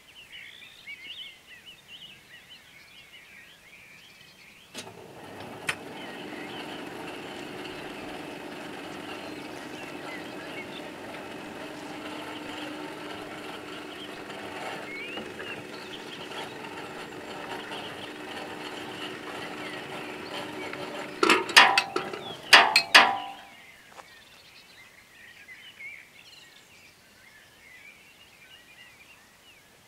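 Railway level-crossing warning signal sounding steadily as the half barriers lower. It starts with a click about five seconds in, and a few loud clunks near its end as the booms come to rest. Birds chirp before and after.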